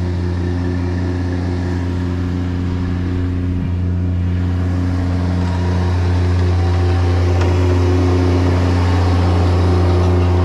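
An engine running steadily at an even idle, a deep constant hum, growing slightly louder about six seconds in.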